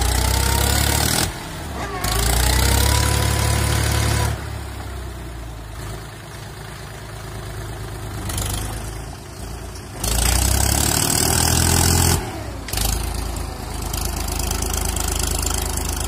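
Mahindra tractor's diesel engine running under load while it pulls a spring-tine cultivator through soil and dung. Its pitch rises and falls several times, and it swells louder in stretches.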